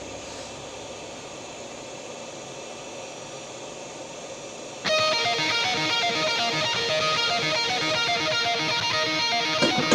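Background music: an electric-guitar rock track comes in suddenly about five seconds in, after a few seconds of steady low hiss.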